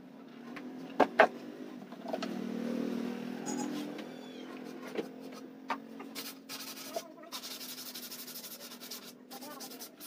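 Two sharp wooden knocks about a second in, then a steady low hum underneath. In the last few seconds, quick back-and-forth scraping of a hand sanding the edge of a plywood board.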